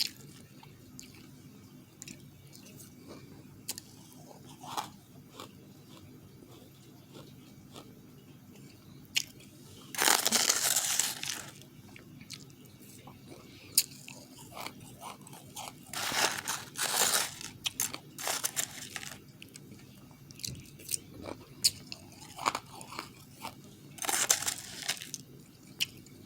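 Close-miked crunching of refrozen powdery ice being bitten and chewed: three loud crunching bites spread through, with quieter crackling chews between them.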